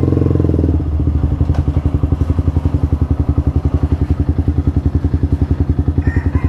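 Yamaha R15 v2's single-cylinder 150 cc engine idling with an even, rapid pulse, a little louder in the first second before it settles.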